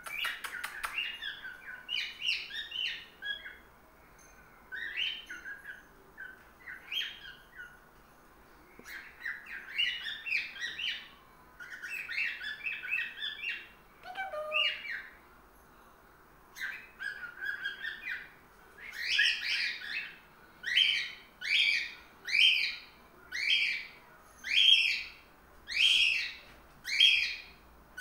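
Young male cockatiel singing: short warbled chirps and whistles in bursts with pauses between them. About two-thirds of the way through it changes to a steady run of loud repeated notes, roughly one a second.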